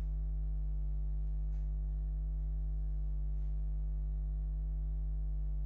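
Steady electrical mains hum on the recording, a low buzz with many overtones, with a couple of faint clicks.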